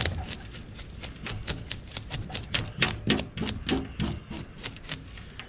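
Filleting knife cutting into a whole snapper, a quick run of crackling clicks, several a second, easing off near the end.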